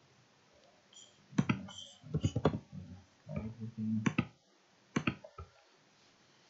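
Computer keyboard keys clicking as a short word is typed, in an uneven cluster of quick clicks, followed by a few single sharper clicks of keys or a mouse.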